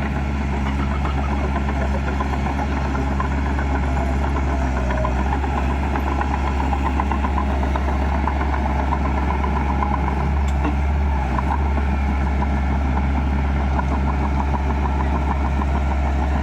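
Heavy construction-machine diesel engine running steadily, with a fast fine clatter over a low drone.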